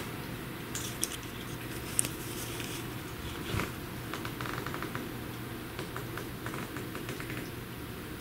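A steady low hum with scattered small clicks and taps, and a quick run of ticks about four seconds in.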